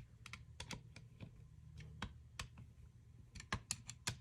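Faint scattered clicks and taps of a screwdriver on the gearbox shell screws as they are given a final tightening, with a quick run of clicks near the end.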